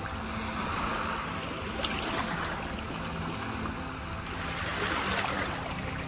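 Small waves washing in over shallow pebbles at the sea's edge: a steady rush of water that swells about a second in and again near the end.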